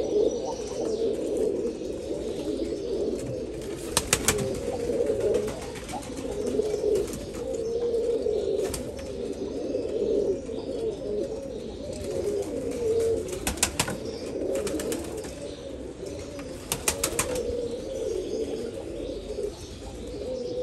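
Albanian highflyer pigeons cooing steadily, several birds at once. A few brief spells of wing flapping break in.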